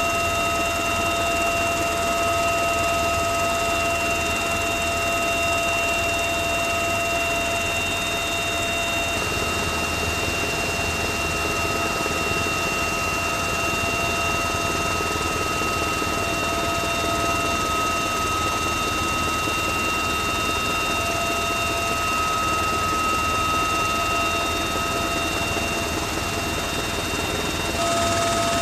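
Bell UH-1Y Venom helicopter in flight, heard from inside the cabin with the side door open: a steady drone of its twin turboshaft engines and rotor, with several high steady whining tones over a rushing noise.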